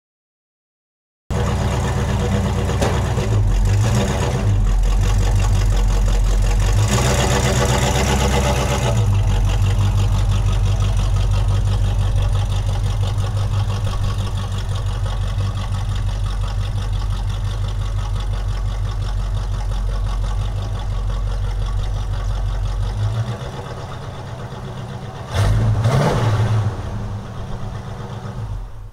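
1979 Camaro's small-block Chevy 350 V8 with headers and true dual exhaust running at idle, revved briefly a few times; it starts after about a second of silence.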